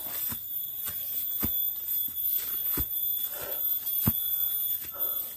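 Footsteps through grass and undergrowth, a sharp step about every second and a bit, over a steady high-pitched insect drone.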